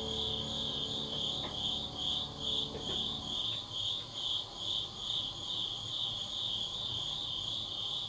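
Autumn insects chirping in an even rhythm, about two pulses a second, with soft background music fading out in the first few seconds.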